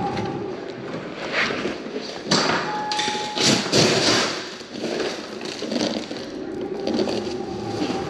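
Muffled rustling and knocks from a wireless microphone rubbing inside a pocket as its wearer moves, with one short steady electronic beep about three seconds in.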